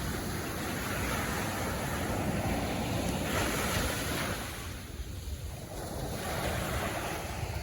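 Ocean surf washing steadily onto the beach, easing briefly about five seconds in before building again, with wind buffeting the microphone.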